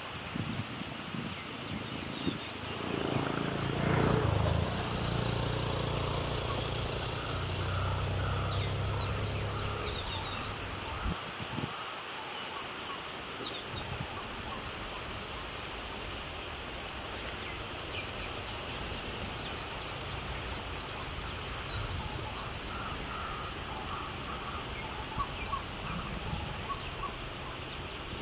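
Pondside ambience: a steady high insect drone. A low engine hum swells about four seconds in and fades out by about ten seconds, and a bird calls in quick runs of short, high chirps through the second half.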